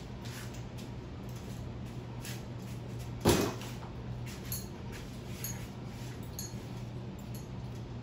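Harbor Breeze Pawtucket ceiling fan running with a steady low motor hum and faint scattered clicks, the noise it makes after being wobbly. A single loud thump about three seconds in.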